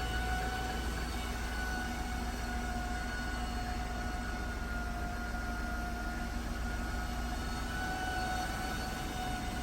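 2008 Jaguar XJ's failing original alternator giving a steady high-pitched whine over a low rumble, the sign of the alternator giving out.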